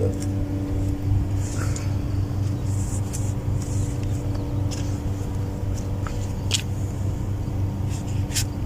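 Steady low mechanical hum of a running engine or machine, with a constant drone and a few faint clicks and taps over it.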